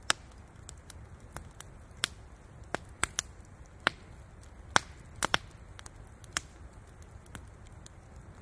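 Wood campfire crackling: sharp snaps and pops at irregular intervals, roughly one a second, over a faint low hiss of the burning logs.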